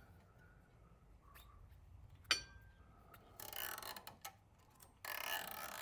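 Metal parts and tools handled while a motorcycle rear wheel is worked into place: a sharp metallic clink with a brief ring a little over two seconds in, then two short bursts of scraping and rustling.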